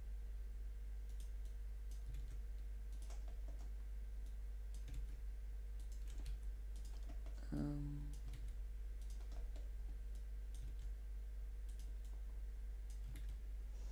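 Computer keyboard and mouse clicking: scattered, irregular taps as keyframes are duplicated one by one, over a steady low hum.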